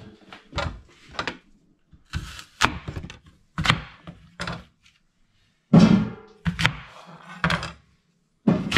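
Kitchen knife chopping through apples onto a wooden chopping board, with the halves dropped into a stainless steel saucepan: irregular knocks and thunks, roughly one a second.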